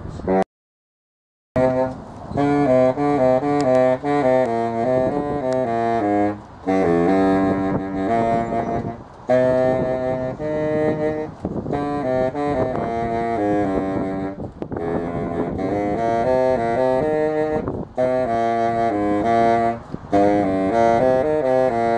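A saxophone playing a melody solo, note by note in phrases with short gaps between them. It starts after a second of dead silence near the start.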